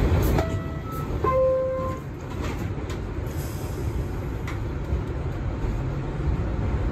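Two-tone chime of an R62A subway car's door signal, a higher note then a lower one, about a second in, over the steady rumble of the car: the warning that the doors are about to close.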